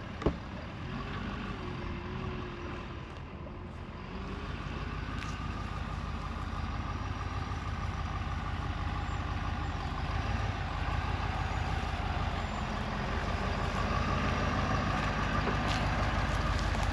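Truck engine running steadily under load as it moves a heavy trailer, growing gradually louder; a single sharp click about a quarter second in.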